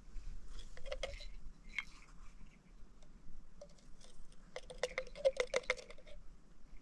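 A red plastic measuring scoop tapping and scraping against the neck of a plastic baby bottle as milk powder is shaken in. A few light clicks come about a second in, then a quick run of clicks comes between about four and a half and six seconds.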